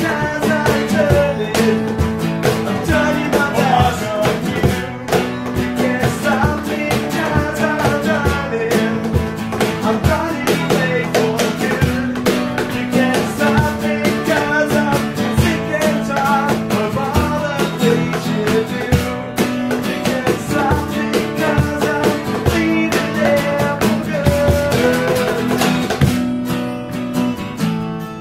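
Acoustic band music: two acoustic guitars playing over a steady cajon beat.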